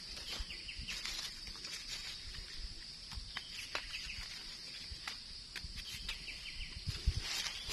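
Dry leaf litter and twigs crackling in scattered short clicks as gloved hands pick mushrooms, over a steady high-pitched insect drone.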